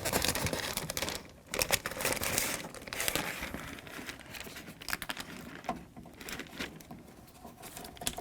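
Plastic crinkling and rustling as wiring is fed through the inside of a car door, busiest in the first few seconds and sparser toward the end.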